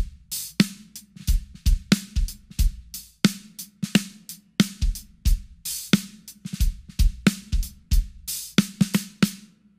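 Drum kit playing a hip-hop groove of kick drum, hi-hat and a 14x6 maple snare (Sonor AQ2) damped by a cloth towel-style muffling pad laid on its head. The snare has a very muffled, low, vintage sound.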